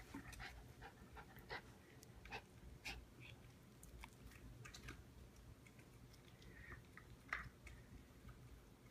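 Near silence with faint, scattered soft clicks and smacks from a Bichon Frise's mouth close to the microphone, the clearest about two-thirds of the way in.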